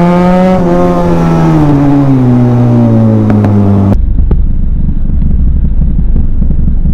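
Benelli TNT 300's parallel-twin engine heard from the rider's seat, its pitch falling steadily as the throttle is rolled off. About four seconds in the sound changes abruptly to a low, rough rumble of the bike rolling at low speed.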